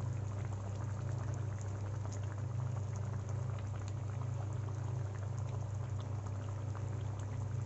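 Egg and potato curry gravy simmering in a pan, a steady stream of small bubbling pops over a constant low hum.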